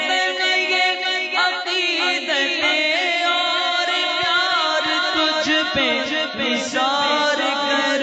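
An Urdu patriotic nagma sung by a male voice in wordless melodic runs over a steady low drone, in the vocal-only style of a cappella.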